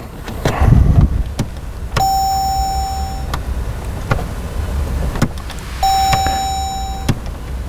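Clicks from pressing the 2017 Jeep Grand Cherokee's push-button start, and two steady electronic beeps about a second long each, the warning that no key fob is detected. The engine does not crank. A low hum runs underneath.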